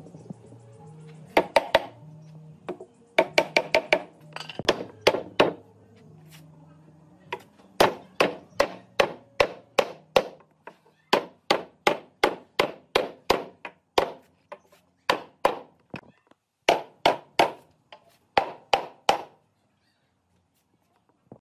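Hammering on wood: sharp, loud blows, first in quick bursts, then a steady run of about two blows a second that stops near the end. Faint background music under the first part.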